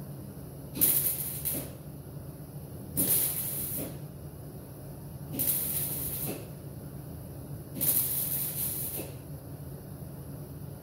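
MIG welder stitch-welding a sheet-steel patch panel into a jeep body in short runs: four bursts of about a second each, roughly every two and a half seconds.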